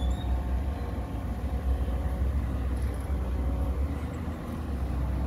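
Excavator's diesel engine running steadily while it works a vibratory pile-driving hammer: a continuous low rumble with a faint steady whine above it.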